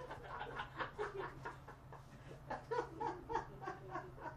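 A man laughing in two bouts of quick ha-ha pulses, the second starting about two and a half seconds in, over a low steady hum.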